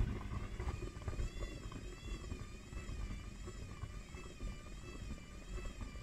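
Hotpoint front-loading washing machine tumbling a drum overfilled with sudsy water, which sloshes and churns steadily. Water fills the drum far too high because the machine runs without its pressure switch. A faint high whine wavers up and down about once a second from about a second in.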